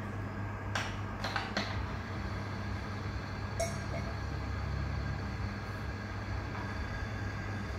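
Small electric motor of a Timken-type bench load tester running with a steady hum, its rotor turning against the test pin with only a drip of extreme-pressure additive and no engine oil. A few sharp metallic clinks about a second in and again near the middle.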